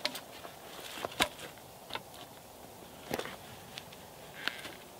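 A birch log being handled on twiggy woodland floor, with footsteps: a handful of separate sharp knocks and crackles, the loudest about a second in.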